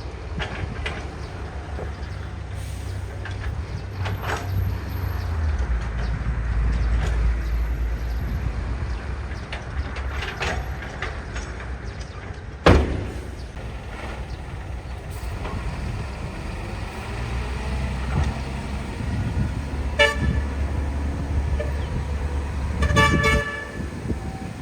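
Diesel engines of earthmoving machines running with a low, steady drone. A single sharp knock comes about halfway through, and a vehicle horn gives two short toots near the end.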